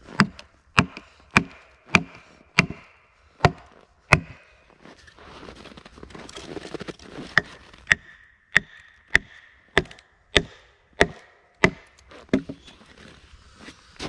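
Wedges being hammered into a crack in a log to split it lengthwise: sharp wooden blows about every 0.6 seconds, in two runs with a pause of a few seconds between them.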